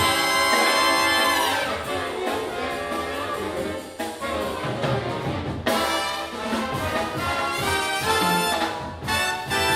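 Jazz big band's brass section, trumpets and trombones, playing held chords, with fresh full-band entries about halfway through and again near the end.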